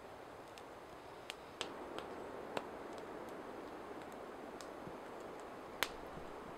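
Wood campfire crackling: a few scattered sharp pops over a soft steady hiss, the loudest pop near the end.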